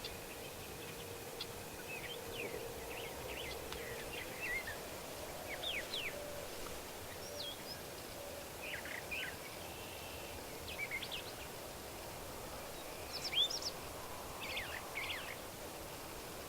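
Small songbirds chirping and singing in short, scattered phrases, several calls every second or two, over a faint steady outdoor hiss.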